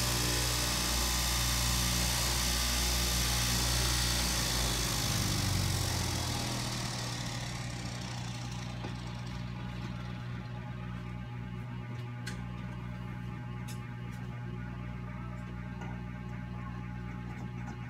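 Electric straight-knife cloth cutting machine running, its motor giving a steady hum. For about the first six seconds a high hiss rides over the hum, then fades, leaving the hum and a few small clicks.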